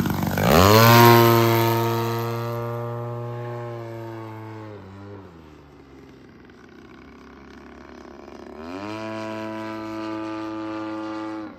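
Single-cylinder two-stroke gasoline engine (DLE 55) of a large-scale RC Slick 540 aerobatic plane making a fast low pass: the note is loudest about a second in and falls steeply in pitch as the plane goes by. The engine note dips and quietens about five seconds in, then rises and grows louder again about three seconds later before cutting off suddenly at the end.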